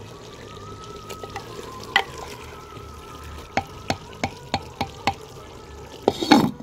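Wooden ladle stirring a thick potato and cauliflower curry in a clay pot, knocking against the pot's rim about three times a second through the middle, with a louder clatter near the end.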